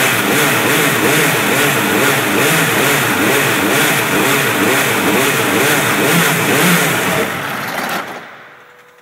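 Dallara F3 394 Formula 3 racing engine running during warm-up, with its oil pressure being checked. It runs loud and steady with the revs wavering slightly, then is switched off about eight seconds in and dies away quickly.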